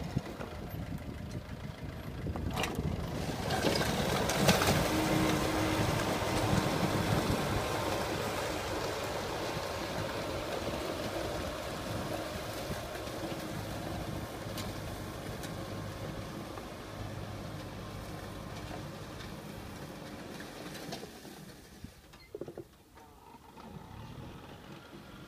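Kubota farm tractor's diesel engine running under load as it pulls a disc plough through the soil. It is loudest a few seconds in, then fades steadily as the tractor draws away.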